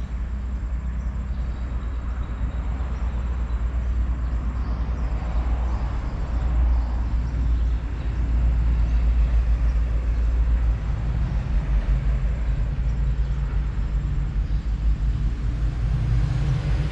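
Low rumble of road traffic on a highway, with a vehicle passing about five seconds in and the rumble louder through the second half.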